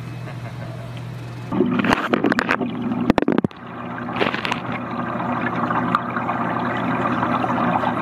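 Camera microphone dipped into an aquarium: a few sharp knocks and splashes as it goes into the water, then the muffled, steady bubbling and gurgling of the tank water heard from under the surface.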